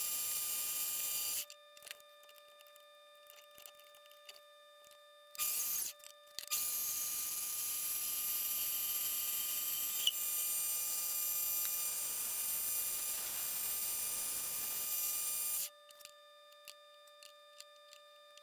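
Mini lathe running while turning a mild steel bar: a steady motor whine with a high hiss. It stops about a second and a half in, runs briefly again around five and a half seconds, then runs steadily from about six and a half seconds to about fifteen and a half. Between runs there is near silence with a few faint clicks.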